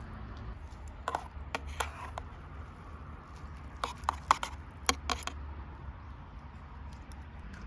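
About ten light knocks and clicks in two short clusters, over a low steady rumble.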